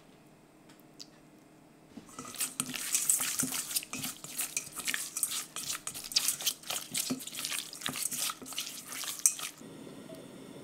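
Diced raw chicken breast being stirred with a silicone spatula in a stainless steel bowl to coat it in oil and seasoning: wet squelching with quick clicks and scrapes of the spatula against the bowl. It starts about two seconds in and stops just before the end.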